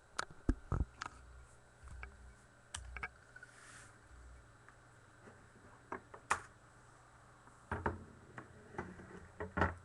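Irregular light clicks and taps from small hard objects being handled, a cluster near the start, a few single ones in the middle and another cluster near the end.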